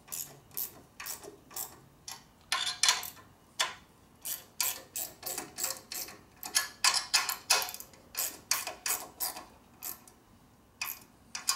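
Socket ratchet clicking in runs of strokes, with a couple of short pauses, as handlebar clamp bolts are drawn down evenly.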